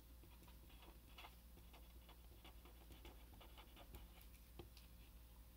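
Faint scratching of a felt-tip marker writing on paper, a quick run of short strokes.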